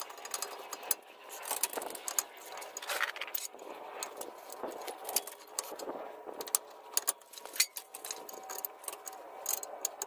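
Irregular metal clinks, clicks and rattles from a Geo Tracker's front CV axle and steering knuckle being worked into place by hand during reinstallation.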